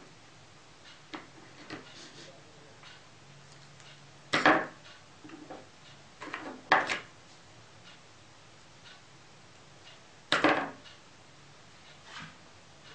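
Small paper pieces and craft tools handled on a cutting mat: light clicks and taps, with three louder, brief rustling scrapes about four, seven and ten seconds in.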